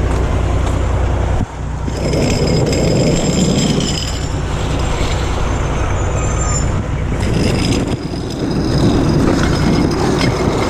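Heavy truck engine running as the truck is pulled into position. A steady low hum breaks off about a second and a half in, and a rougher, noisier running sound takes over.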